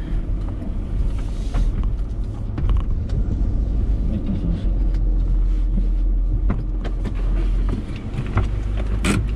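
Car running, heard from inside the cabin: a steady low engine and road rumble with scattered small clicks and knocks, and one sharp click near the end as the front passenger door is open.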